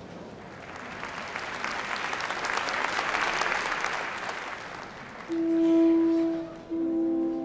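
An audience applauding, swelling to a peak and fading away over about five seconds. Orchestral music then begins with long held notes, one stopping and another starting near the end.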